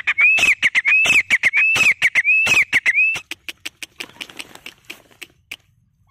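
Grey francolin calling loudly: a quick run of shrill rising-and-falling notes, about one every two-thirds of a second, with harsh clicking notes between them. The run stops about three seconds in, leaving a few fainter clicks.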